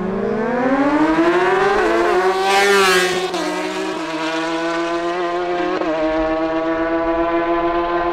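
Two sport motorcycles launching off the line and accelerating hard down a drag strip. The engine pitch climbs and drops back at each gear change, loudest about three seconds in, then holds a high steady note as the bikes run away.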